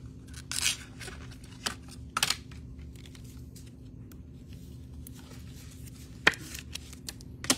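Trading cards and their holders being handled on a table: rustling and sliding with scattered sharp clicks, two of them near the end, over a faint steady hum.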